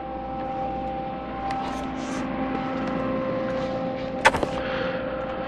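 A steady hum with a hiss that swells, broken by two sharp knocks, one about four seconds in and one at the very end.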